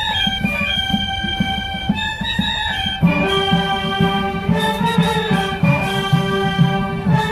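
College marching band playing: brass holding sustained chords over a steady drum beat, with the fuller band coming in louder about three seconds in.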